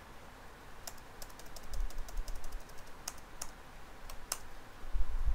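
Computer keyboard keystrokes, an irregular run of sharp clicks starting about a second in, with a couple of low thuds.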